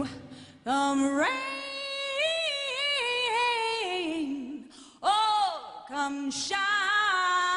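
Female jazz singer singing a long unaccompanied phrase, her voice sliding and wavering through a melisma after the band stops. About six and a half seconds in, the band comes back in with a sharp hit and a held chord.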